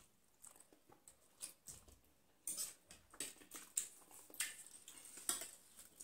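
People eating spicy ramen noodles: faint slurps and sharp breaths drawn in through the mouth, with light clicks of forks and spoons against plates. The hissy slurps and breaths come in several short bursts from about halfway through.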